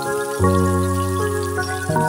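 Background music of held chords, changing about half a second in and again near the end. Under it is a faint crackling sizzle of sliced onions frying in oil.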